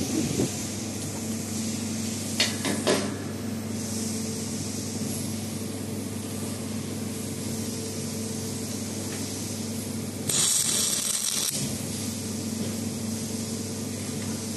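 Drawn-arc stud welder firing a shear stud onto steel plate: a loud hissing arc burst lasting just over a second, about ten seconds in, over a steady electrical hum. A few sharp metal knocks come about two and a half seconds in.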